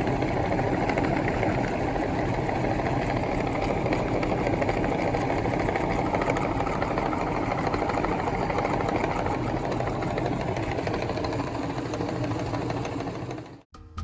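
Meat grinder running steadily with a constant motor hum, cutting off abruptly near the end.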